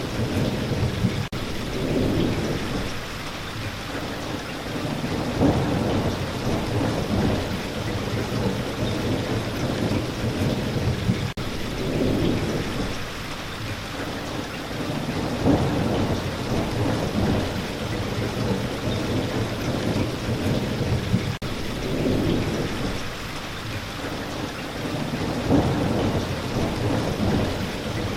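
Steady rain falling, with low rolls of thunder swelling and fading every few seconds.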